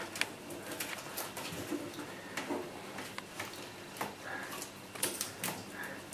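Scattered light clicks and rustles of masking tape and paper being handled and pressed into place, with a couple of faint brief squeaks.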